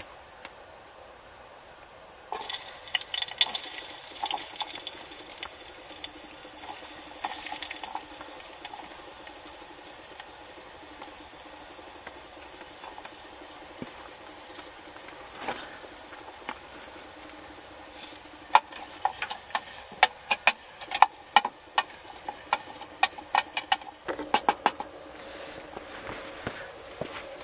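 Food cooking in a small metal pot: a watery hiss sets in suddenly about two seconds in, and later comes a quick run of sharp clicks and taps against the pot.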